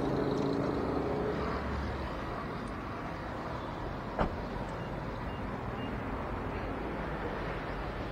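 Steady outdoor traffic and street noise, with a single sharp knock about four seconds in.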